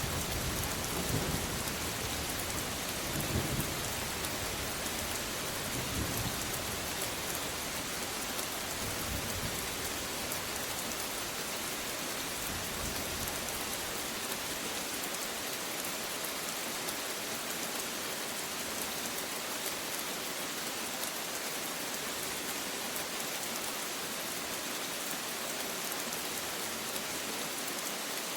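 Steady rain falling, with low rolling thunder rumbling in swells through the first half and dying away about halfway through, leaving only the rain.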